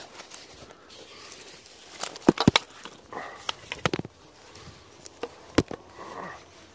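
Footsteps and rustling through dense undergrowth, with clusters of sharp cracks and knocks about two seconds in, again near four seconds, and once more a little later.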